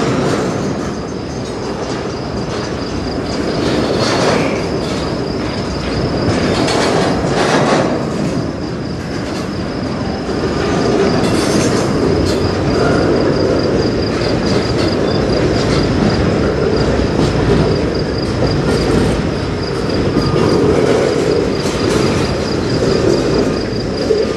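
A freight train's cars rolling past: a steady rumble of steel wheels on rail, with clanks and a few brief squeals. A faint high, steadily pulsing tone runs underneath.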